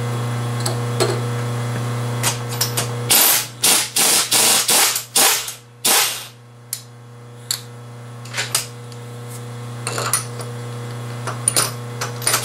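Milling machine running with a steady low hum while a steel part is clamped in the machine vise: a quick run of metal scrapes and clanks about three to six seconds in, then scattered light clicks and taps of tools on metal.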